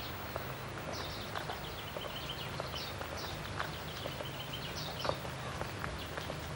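Two people walking on a gravel path, their footsteps landing as irregular short crunches, while birds sing in short repeated chirping phrases.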